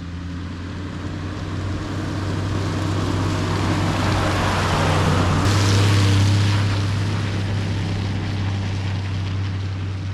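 Toyota Troop Carrier driving on a gravel road: a steady low engine drone with rushing tyre and road noise that swells to a peak about halfway through, then eases off.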